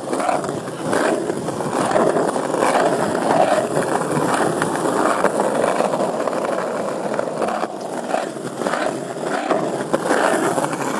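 Handling noise: a phone's microphone rubbing and scraping against a jacket while it is carried on the move, a dense, continuous rustle with many small knocks.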